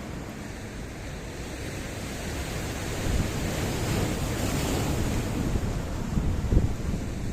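Sea waves surging in and washing over stones: a steady rush of surf that builds about three seconds in and peaks in the middle, with a few low thumps near the end.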